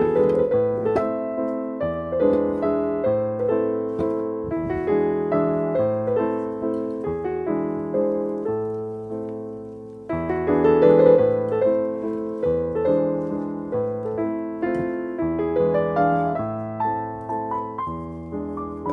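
Background piano music: a melody over chords, each note fading away, with a new phrase starting about halfway through.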